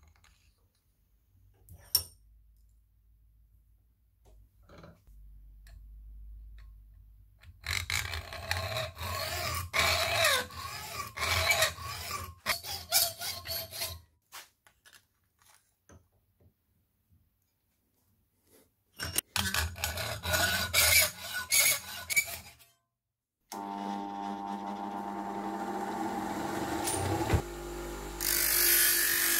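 A hand saw cutting through a thin aluminium plate clamped in a vise, in two spells of fast scraping strokes. About three-quarters of the way through, a bench grinder starts and runs with a steady hum, and near the end the aluminium edge is pressed to the wheel, adding a loud, high grinding hiss.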